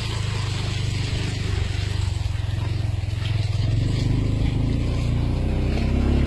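A 4x4 vehicle's engine running steadily with a low hum. Its note grows a little louder and fuller a little past halfway.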